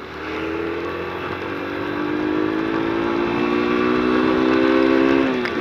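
Yamaha YBR Factor 125's single-cylinder four-stroke engine under way. Its note climbs slowly and grows louder as the bike gathers speed, then drops sharply near the end. It is running evenly, which the rider takes to mean the misfire from a rain-soaked spark plug lead has stopped.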